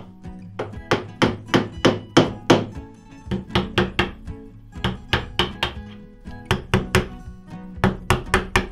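Mallet taps on a narrow chisel chopping out a groove in oak: a quick series of sharp, ringing strikes, about three a second, in short runs.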